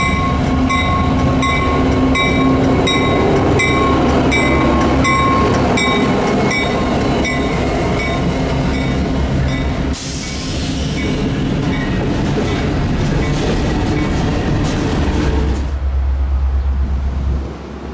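Freight train passing at close range, with a steady diesel locomotive hum and the rumble of rolling railcars. A crossing bell rings about twice a second for the first eight seconds or so, then fades out. From about ten seconds a hissing rush of wheel and rail noise comes in, and near the end it gives way to a low rumble of wind on the microphone.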